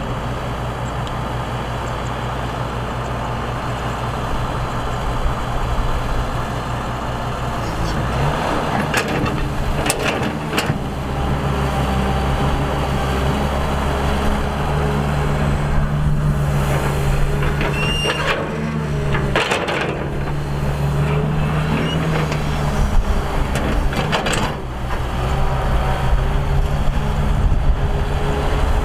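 Excavator's diesel engine running under changing load while digging, its pitch and level rising and falling. Several sharp clanks and scrapes of the bucket and arm come through the middle, with one brief high squeal.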